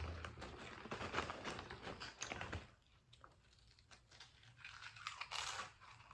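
Barbecue potato chips being crunched and chewed close to the microphone, with the chip bag crinkling as a hand reaches in. The crunching dies down about halfway through, then comes back with a fresh mouthful.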